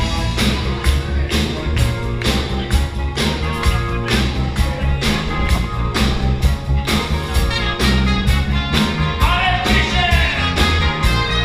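Live rock band playing loud with a steady driving beat, heard from within the dancing crowd, with a singing voice over it.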